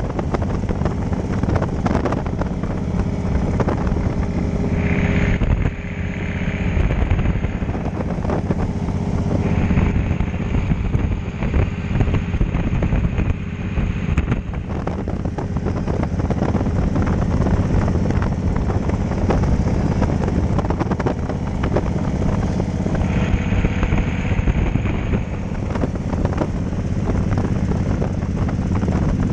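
Cruiser motorcycle engine running steadily at road speed, heard from the rider's seat, mixed with wind rushing over the microphone.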